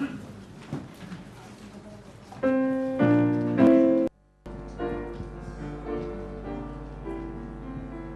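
Keyboard playing sustained chords as the introduction to a hymn. It comes in loudly about two and a half seconds in, breaks off for a moment just after four seconds, then carries on with held chords.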